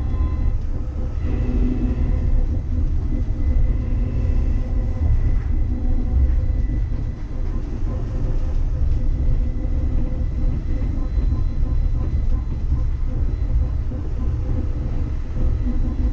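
Uijeongbu light rail car, a Siemens VAL 208 rubber-tyred driverless train, running between stations and heard from inside the car. A steady low rumble with a few faint, steady whining tones above it.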